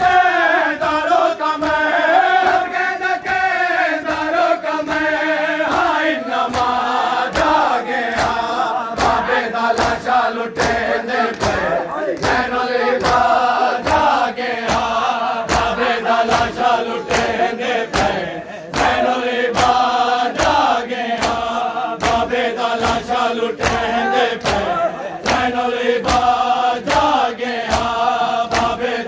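Men chanting a noha, a mourning lament, in unison, with a rhythmic matam of open hands slapping bare chests about every three-quarters of a second.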